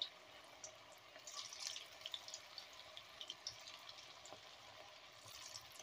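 Batter-coated cauliflower pieces deep-frying in hot oil in a kadai: a faint sizzle with scattered small crackles and pops.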